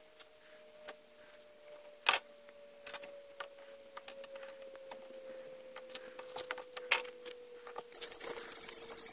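Knife working a thin wooden fireboard for a hand-drill fire, with scattered clicks, scrapes and a few sharp knocks, the loudest about two seconds in and about seven seconds in. Underneath is a faint steady tone that slowly falls in pitch, and a rustling hiss comes in near the end.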